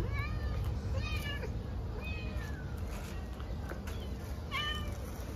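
A stray cat meowing repeatedly: about five short, bending calls, roughly one a second, the last near the end among the loudest.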